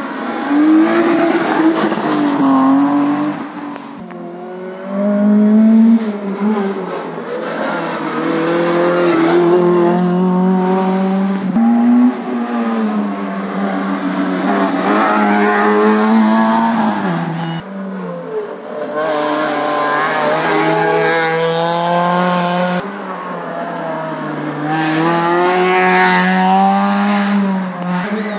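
Rally cars driven hard through a hairpin one after another. Their engines rev up and drop back again and again as they change gear, with several sudden switches from one car to the next.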